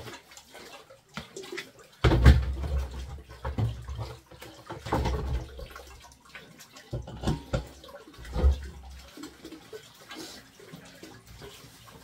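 Water splashing and gurgling in irregular spurts, with bursts of low rumble over it about two seconds in and again around seven seconds.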